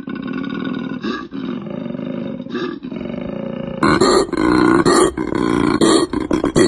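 Koala bellowing: a continuous deep, rasping call broken by short pauses every second or so, becoming louder and brighter about four seconds in.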